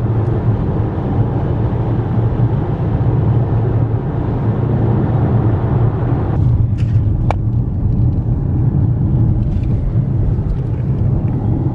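Road noise inside a moving car's cabin: a steady low drone of engine and tyres on the highway. Partway through, the higher hiss thins out, and a single short click sounds a little past the middle.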